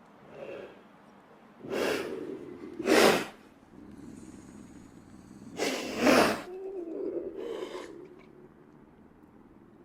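Canada lynx giving a series of short, sharp breathy hisses, four loud ones with the loudest about three and six seconds in, and a brief low wavering growl just after the one near six seconds.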